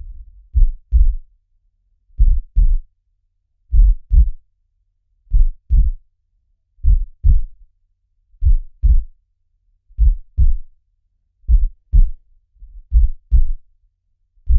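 Heartbeat sound, a steady lub-dub of paired low thumps, slow at roughly one beat every second and a half.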